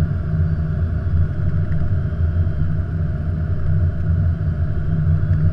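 Steady low rumble inside an Airbus A330-200 flight deck on short final approach: airflow and engine noise heard from the cockpit.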